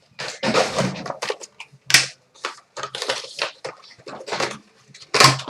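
Plastic wrapping and cardboard crinkling and tearing in quick irregular rustles and crackles as a box of trading cards is opened and handled.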